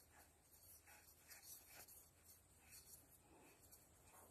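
Near silence, with faint rubbing and scraping as a spin-on oil filter is turned by hand onto its housing.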